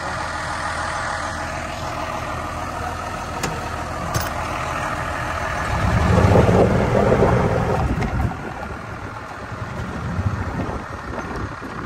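A vehicle engine running steadily, then revved for about two seconds in the middle before it drops back to an uneven run. The engine is being warmed up before it is pulled out.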